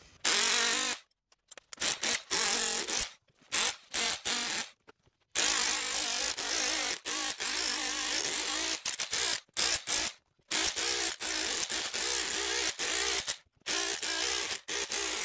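Power tool fitted with a tile blade running in repeated bursts of one to a few seconds, separated by abrupt silent gaps, as the blade is driven into scrap electric motor stators to push out the copper windings.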